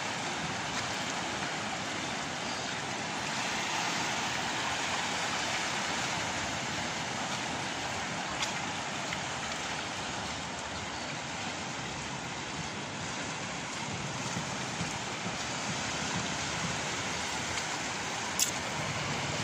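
Steady rushing of water at a bathing spot, with two short sharp clicks, the louder one near the end.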